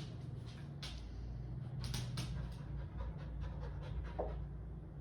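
Dog panting, with a few short, sharp ticks over it.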